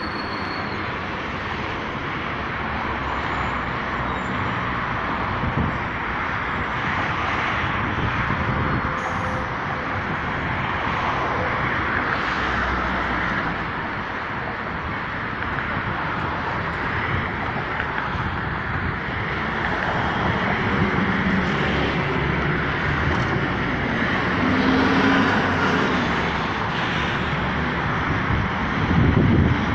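Steady city road traffic: cars and buses passing on a busy multi-lane road, the noise swelling and easing as vehicles go by, with a louder pass near the end.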